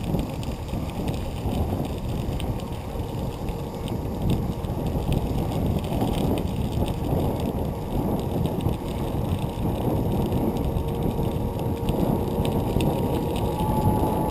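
Steady rush of wind on the microphone and tyre noise from a bicycle rolling at speed over a crushed-stone trail, with faint scattered ticks of grit under the wheels.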